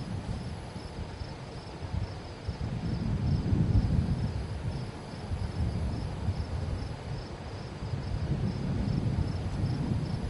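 Wind buffeting the microphone in gusts that swell and fade, with a faint high chirping of insects repeating evenly underneath.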